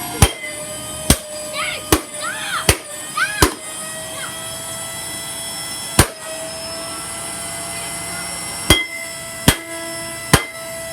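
A Shark Rotator vacuum cleaner's motor runs with a steady whine while it is struck with nine sharp blows: five come quickly about a second apart, then one more, then three near the end. A few short squealing glides rise and fall between the first blows. The motor is failing.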